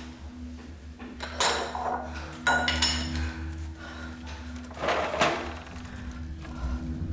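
Cups and dishes clinking and clattering as they are handled, in three short bouts about a second, two and a half seconds and five seconds in, some with a brief ringing, over a low steady hum.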